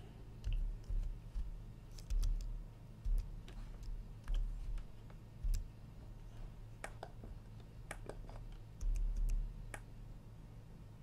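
Scattered clicks of a computer keyboard and mouse, irregular and spaced out, with several dull low thumps among them, over a steady low hum.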